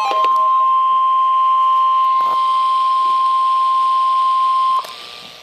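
NOAA Weather Radio 1050 Hz warning alarm tone: a single loud, steady beep held for nearly five seconds, then cut off abruptly, with radio hiss beneath. It signals that a warning broadcast, here a Special Marine Warning, is about to follow.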